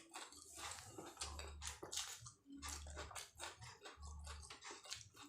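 Close-up chewing and biting of martabak telur (egg-stuffed fried pastry) with chillies: many small mouth clicks and crackles, with a low thud recurring about every second and a half.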